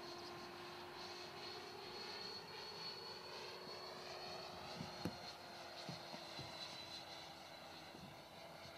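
Radio-controlled scale model SAAB J32 Lansen flying overhead, its motor a faint steady whine that slowly drops in pitch. A few short knocks come in the second half, the sharpest about five seconds in.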